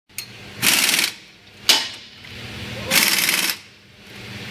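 Impact wrench running in three short bursts, about half a second, a brief blip and another half second, on the hub assembly's bolts during a front wheel hub bearing replacement.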